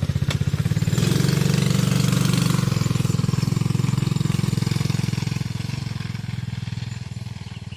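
Small off-road vehicle engine running with a fast, even putter. It revs up about a second in, holds, then fades as the vehicle drives off.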